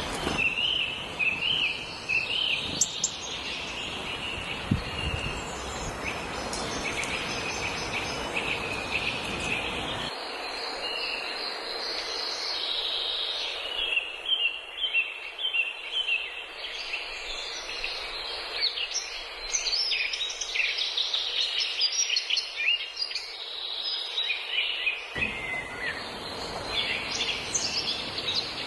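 Many small birds chirping, with dense, overlapping short chirps throughout, over a low background rumble that drops away for a long stretch in the middle.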